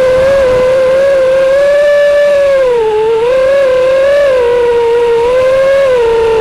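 Racing quadcopter's brushless motors (Dragonfly Hurricane 2207, 2500KV) spinning three-blade props, giving a loud whine whose pitch rises and falls with the throttle, dipping about three seconds in.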